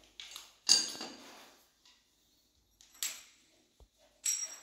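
Handling noise from a hand shower's flexible hose and its metal fittings: four sharp clatters with a faint metallic ring, the loudest less than a second in.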